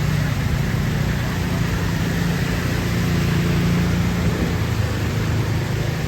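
A motor vehicle's engine drone under a steady, loud rushing hiss.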